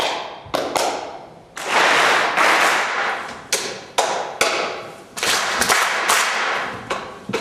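Theatre audience making sharp sounds together on a conductor's cues: about a dozen short group claps, each ringing on in the hall, with a couple of longer rushes of clapping noise between them.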